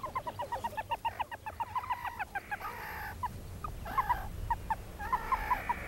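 Meerkats chirping: a quick run of short, high peeps, about six a second, that thins out after two seconds into scattered chirps and a few harsher buzzy calls.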